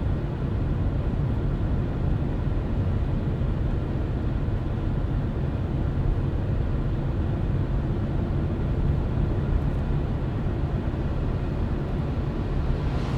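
Car driving at steady speed: a constant low rumble of tyres and engine on the road, with a short rush of noise near the end.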